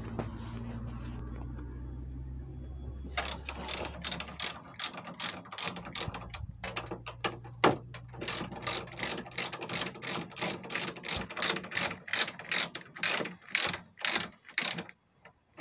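Hand ratchet wrench clicking in quick runs of strokes, starting about three seconds in, as the nuts on top of the front strut mount are run off. A low steady hum fades out about four seconds in.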